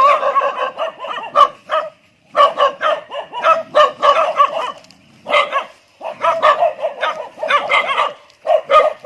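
A dog barking and yapping in quick runs, broken by short pauses about two, five and eight seconds in.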